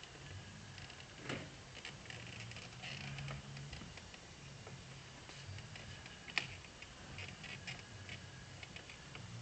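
Small plastic clicks and light rattling from a BMW E92 M3's chrome kidney grille being worked in its opening in the plastic front bumper, with two sharper snaps, about a second in and past six seconds.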